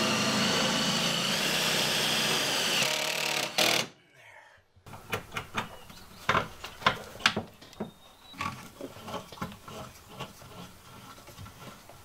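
Cordless drill/driver running steadily for about three and a half seconds, then stopping. After a short pause, a scatter of light clicks and knocks from hardware being handled and fitted.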